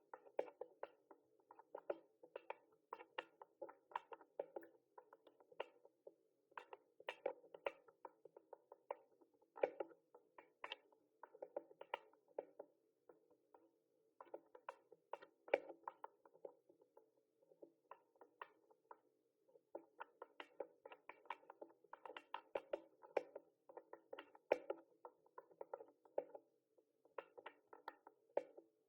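Typing on a mechanical keyboard: quick, irregular key clicks in runs of several seconds, with brief pauses between runs.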